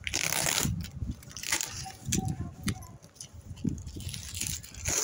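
Clear packing tape being picked at, peeled and torn off a cardboard box, with crackling tape and scraping cardboard in irregular bursts.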